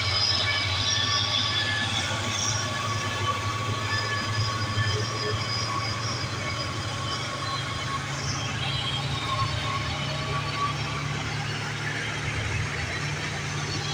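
Diesel engines of loaded Mitsubishi Fuso trucks working hard on a hill climb: a steady low drone with faint whining tones above it. Heavy rain hisses throughout.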